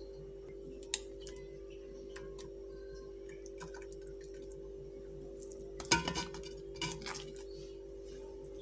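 A steady low hum, with a single sharp click about a second in and a cluster of louder clicks and knocks around six to seven seconds in.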